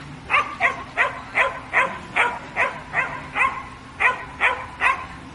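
Samoyed barking repeatedly, about a dozen loud barks in a steady run of roughly two to three a second, with a brief pause between the last few.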